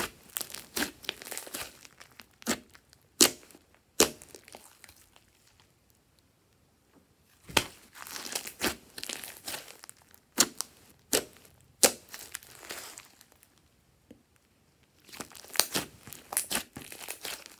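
Hands squeezing and kneading glossy slime: sticky, crackling squelches with sharp pops, in three bouts separated by short pauses.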